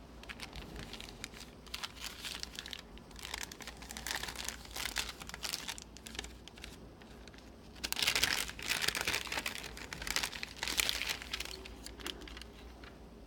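Phone case packaging crinkling and rustling in irregular bursts as it is handled and opened, loudest about two-thirds of the way through.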